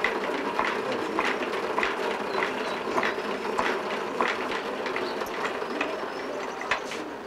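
Wooden hand spinning wheel turning while wool is spun into yarn: a steady whir with a regular clack about every two-thirds of a second.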